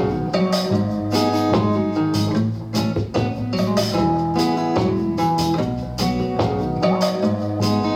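Instrumental music with plucked guitar and a steady drum beat, played through an iClever BoostSound BTS08 Bluetooth speaker for a sound test.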